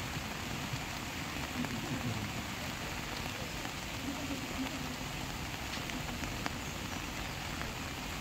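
Heavy monsoon rain falling, a steady even hiss, with faint voices in the background.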